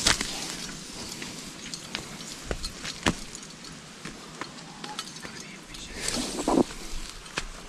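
Footsteps crunching through dry leaf litter and sticks on a bush track, with scattered sharp snaps of twigs underfoot.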